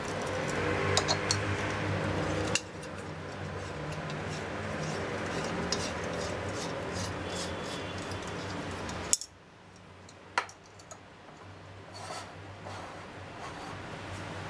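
Small metal clicks and scraping as a BRS-3000T titanium backpacking stove's folding pot supports are handled and the stove is screwed onto the threaded valve of a Snow Peak gas canister. The rubbing cuts off suddenly about nine seconds in, leaving a few sharp clicks.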